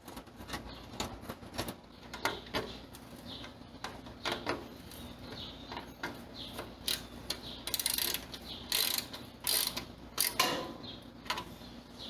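Metal parts of a gas grill being handled and fitted during reassembly: irregular clicks, clinks and knocks, with a quicker run of clicking about eight seconds in.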